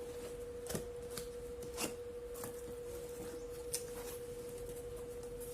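Scattered clicks and light rustles of an angle grinder and its cardboard and plastic packaging being handled during unboxing, over a steady high-pitched hum.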